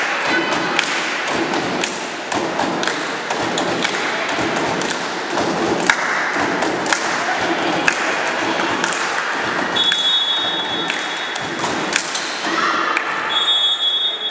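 Volleyball play in a sports hall: a run of sharp thuds and taps as the ball is struck and hits the floor, over a steady wash of players' and spectators' voices. A high whistle blows about ten seconds in and again near the end.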